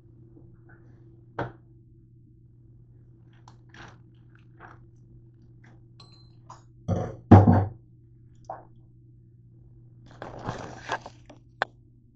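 Food packaging being handled at a counter: a plastic bag of shredded cheese crinkling and containers knocked and set down, with scattered clicks, two loud knocks about seven seconds in and a burst of crinkling near the end, over a steady low hum.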